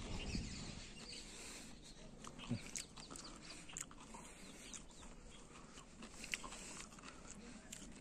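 Faint outdoor farm ambience with scattered short, distant animal calls, one low call about two and a half seconds in.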